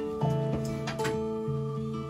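Background music: a light acoustic guitar tune, plucked notes changing every half second or so.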